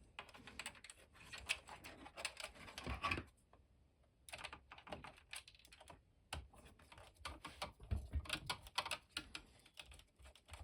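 Irregular small clicks and rattles of screws and a screwdriver being worked into a plastic equipment housing during reassembly, with a short pause in the middle.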